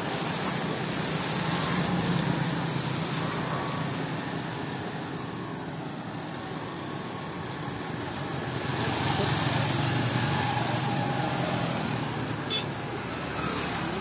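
Road traffic on a wet road, with the hiss of tyres on wet asphalt; a vehicle swells up and fades away twice, about two seconds in and again about ten seconds in.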